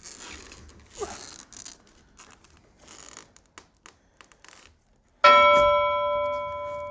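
Packaging rustling and tearing, then about five seconds in a sudden loud metallic clang. A stainless steel part of the tool chest rings on like a bell with several steady tones, slowly fading.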